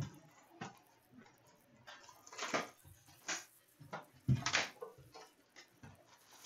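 Cellophane shrink-wrap being torn and crinkled off a cardboard trading-card box, in short irregular rustles and crackles, with a light thump of the box about four seconds in.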